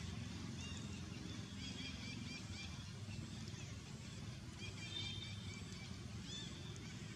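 Short, high-pitched chirping calls come in two bouts, about two seconds in and again near five seconds, over a steady low rumble.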